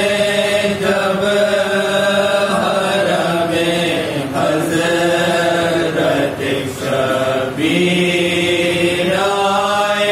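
A group of men reciting a marsiya, an elegy for Imam Husain, together and unaccompanied, in long drawn-out phrases whose pitch bends within each held note.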